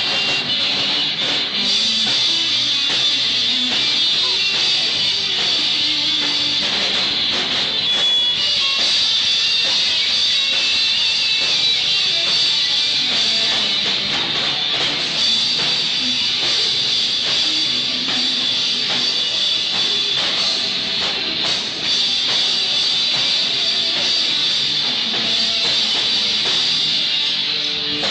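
A rock band playing live at a sound check, with guitar and drum kit, the drum hits keeping a steady beat.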